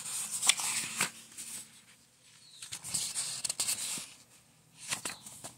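Pages of a paperback book being turned and handled: paper rustling and flapping in three bursts, with a few sharp crisp snaps.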